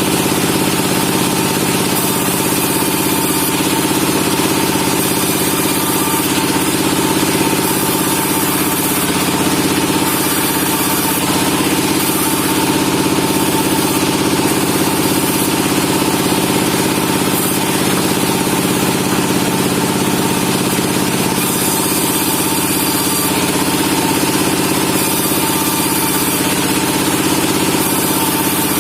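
Sawmill machinery running steadily: a loud, even engine-like hum with a constant pitch that does not rise or fall.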